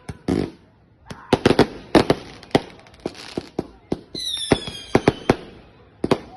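Fireworks going off: an irregular string of sharp bangs. A little after four seconds in, a whistling firework sounds a high whistle that falls slightly in pitch for about a second.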